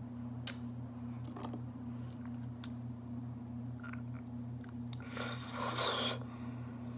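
Close-miked chewing of raw honeycomb: a few short, wet, sticky mouth clicks, then a louder wet burst lasting about a second, about five seconds in. A steady low hum runs underneath.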